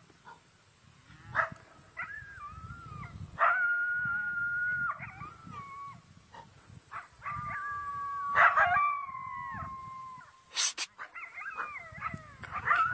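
Coyotes howling and yipping: drawn-out, wavering howls in more than one voice, some overlapping, broken by short yips. A brief sharp noise cuts in near the end.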